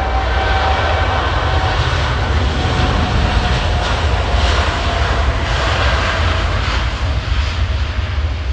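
Jet engines of a Japan Airlines Boeing 787 running as it taxies: a steady, loud rush of jet noise over a deep rumble, with a faint high whine in the first couple of seconds.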